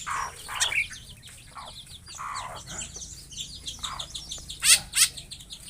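Birds calling: a stream of quick, high chirps with several louder, harsher calls, two sharp ones near the end.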